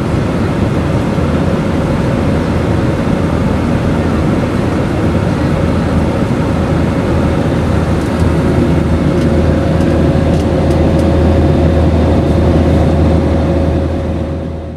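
Airbus A320 cabin noise in flight: the steady drone of the engines and rushing airflow, with a deep low rumble and a faint steady hum above it. It fades away near the end.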